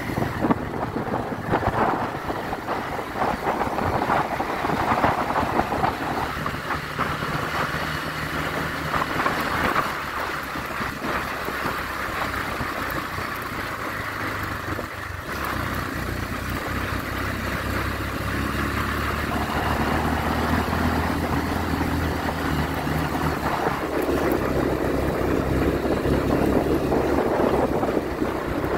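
Motorcycle engine running under way on a dirt road, its pitch shifting now and then with the throttle, under steady rushing wind noise on the microphone.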